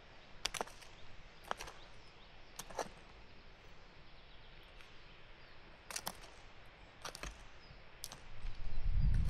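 Hand tool working potato-field soil, hilling the rows: a series of short, sharp scrapes and knocks, about a second apart at first, then after a pause three more. Near the end a loud low rumble sets in.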